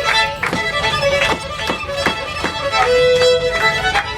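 Fiddle music: a run of quick bowed notes with sharp attacks, one note held for about half a second a little after the middle.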